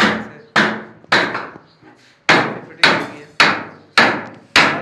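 Hammer driving nails into a wooden shelf rack. Sharp, regular blows come about two a second, eight in all, with a short pause about two seconds in.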